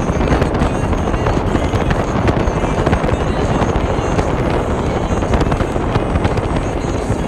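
Heavy wind buffeting on the phone's microphone while riding pillion on a moving motorcycle, a steady crackling rush over the motorcycle's running noise.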